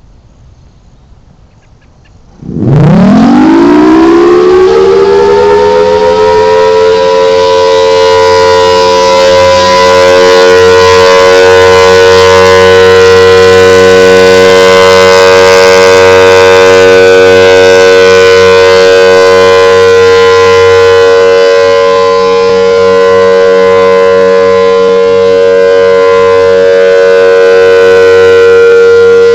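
Federal Signal Thunderbolt tornado siren starting up about two and a half seconds in, its pitch climbing quickly over a few seconds to a steady, very loud wail that holds.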